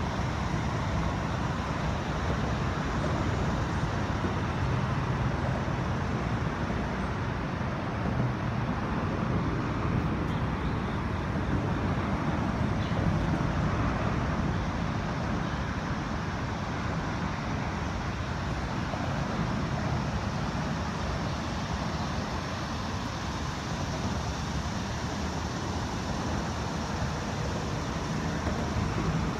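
Steady rumble of road traffic on the I-95 elevated highway overhead, a continuous low hum of passing vehicles.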